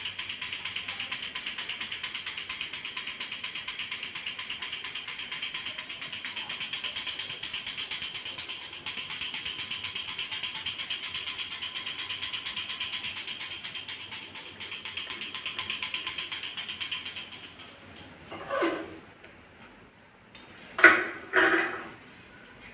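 Brass puja hand bell rung continuously, a steady high jangling ring that stops about three-quarters of the way through. A few short, louder sounds follow near the end.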